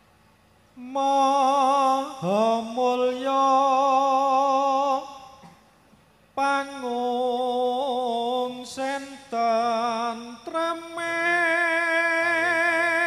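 A man's solo voice chanting a Javanese sung prayer (puji sesanti), unaccompanied, in long drawn-out phrases of held notes with a wavering vibrato and sliding turns. There is a pause for breath about five seconds in, and the last phrase is pitched higher.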